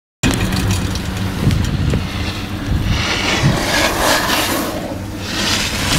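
Wind buffeting the camera microphone: a loud low rumble, with hissy gusts swelling about three seconds in and again near the end.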